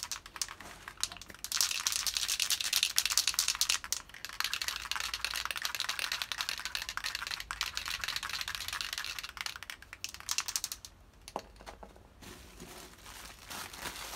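Hand-sanding of a classic Mini's steel rear body panel: a steady scratchy rubbing of abrasive over paint and filler, scuffing the surface in preparation for paint. The rubbing is loudest from about a second and a half in until about eleven seconds, then gives way to quieter handling noises.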